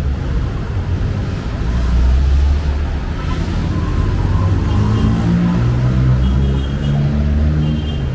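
Busy road traffic: vehicle engines running in a loud low rumble, with engine notes rising and falling as vehicles pass.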